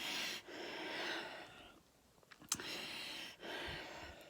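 A woman's heavy, labored breathing: several long noisy breaths in and out, with a short pause about two seconds in and a small click just after it. The breathlessness comes with a bad cough that has brought up blood.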